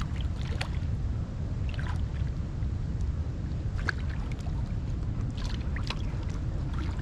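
Steady low rumble of wind on the microphone, with a few short splashes and clicks as a hooked catfish thrashes at the surface beside the kayak.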